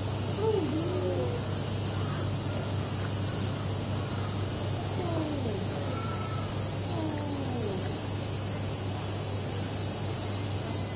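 Steady high-pitched chorus of summer cicadas, with faint distant voices calling out a few times and a low steady hum underneath.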